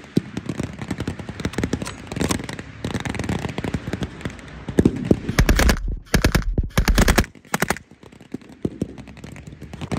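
Blank-firing small arms in a mock battle: scattered rifle shots and rapid machine-gun bursts, loudest in a run of bursts from about five to nearly eight seconds in.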